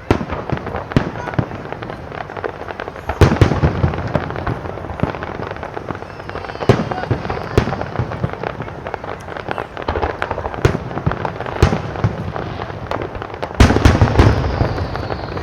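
Aerial fireworks going off in quick succession: a dense run of sharp bangs and crackling. Heavier booms hit about three seconds in and again near the end.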